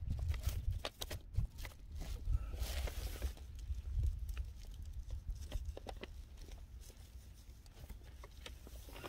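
A plastic cable tie being threaded and pulled tight around a water pump: scattered clicks, rustles and scrapes of handling, with a brief rasp about three seconds in, over a steady low rumble.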